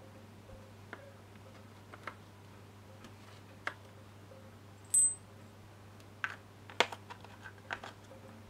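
Small steel bolts and fittings from an AC compressor clutch puller kit clinking against its metal holder plate as they are handled. Scattered light clicks, one bright ringing metallic clink about five seconds in, then a quick run of sharper clicks, over a faint steady hum.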